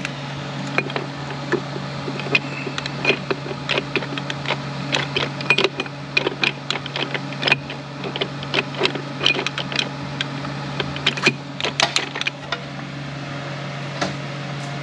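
Irregular light metallic clicks and clinks as steel parts of a Ford 10R80 automatic transmission's gear train are worked by hand, a bearing being seated on a planetary carrier. The clicking stops a couple of seconds before the end, and a steady low hum runs underneath.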